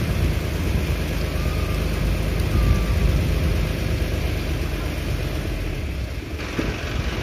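Tandem-axle dump truck's diesel engine running steadily while the tipper bed is raised to unload a load of stone dust.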